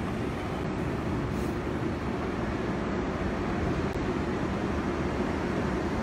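Steady low rumble of a train approaching a station, growing slightly louder.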